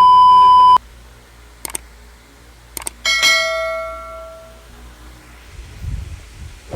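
Sound-effect sequence: a loud steady beep for under a second, two short clicks, then a bell-like ding about three seconds in that rings out and fades over a second and a half.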